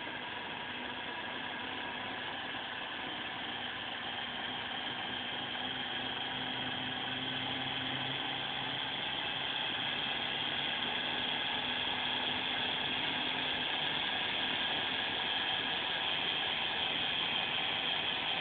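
Aquarium circulation pump (wavemaker powerhead) running: a steady whirring hiss with thin high whining tones, slowly growing louder.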